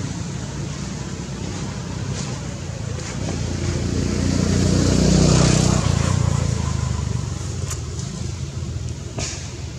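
A motor vehicle passing: a low engine sound swells to its loudest about halfway through and fades again, over a steady low engine hum.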